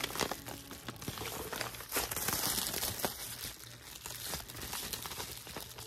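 Plastic bubble wrap crinkling as hands press and pull at a bubble-wrapped package, in irregular crackles.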